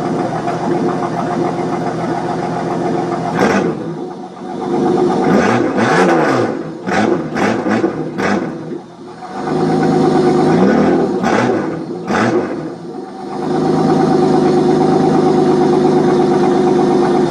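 Holden VN Commodore's 3.8-litre V6 running at a steady idle, blipped with the throttle several times in the middle, each rev rising and falling back, then idling again until it cuts off at the end.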